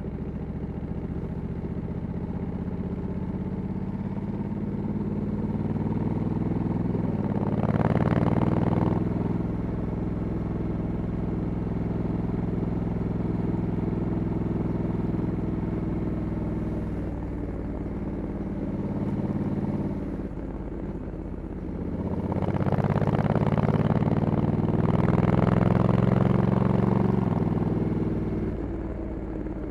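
Stock-exhaust Honda Africa Twin 1100 DCT parallel-twin engine under way, its pitch climbing and falling with the throttle and the shifts of the dual-clutch gearbox. It pulls harder about eight seconds in and again for several seconds in the second half, then eases off near the end.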